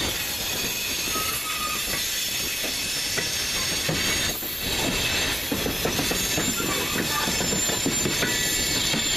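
CSX freight train of tank cars and gondolas rolling past, its steel wheels clattering steadily over the rail joints and a diamond crossing, with a faint squeal from the wheels now and then.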